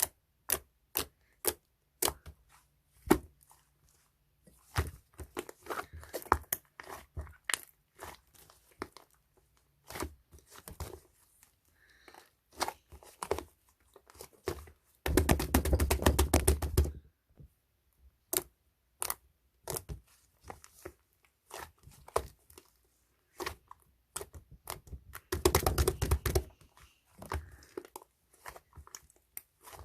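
Slime being squeezed and poked by hand, making sharp wet pops and clicks from trapped air. There are two dense runs of rapid crackling, one about halfway through and one near the end.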